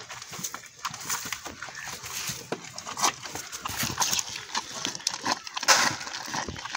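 Two calves suckling at a goat's udder: wet sucking and smacking sounds in quick irregular clicks, with a louder rush of noise near the end.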